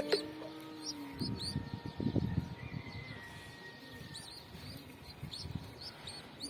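Birds in a pigeon loft: short high chirps repeat throughout, with a burst of low rustling about one to two and a half seconds in.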